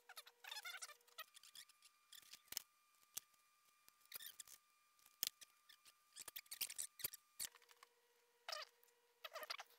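Faint, scattered scratches, rustles and clicks of hands working the umbrella's thin ribs, nylon canopy and string, over a faint steady tone.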